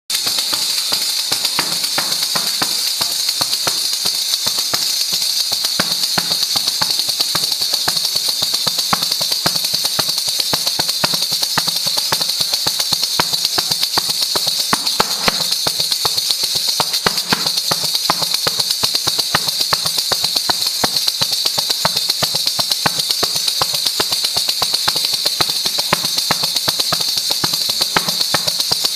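Asturian pandereta, a hand-played frame drum with metal jingles, beaten in a fast, even, unbroken rhythm, the jingles ringing on every stroke.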